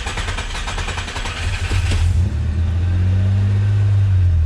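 A car engine just after starting, running with a fast, rattly clatter that gives way about two seconds in to a steady low idle hum.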